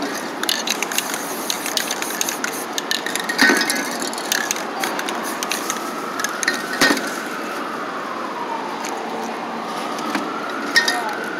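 Irregular crackling and clicking as a paper mask is peeled off wet spray paint, over steady street noise, with sharper clicks a few seconds in and again about halfway. A faint tone rises and falls slowly twice in the background.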